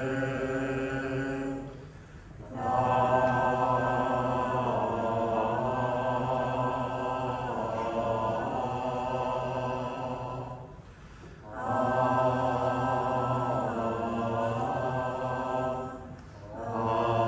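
Jodo Shinshu Buddhist sutra chanting by a group of voices, led by a chanter, with long drawn-out notes. There are short pauses for breath about two seconds in, about eleven seconds in, and near the end.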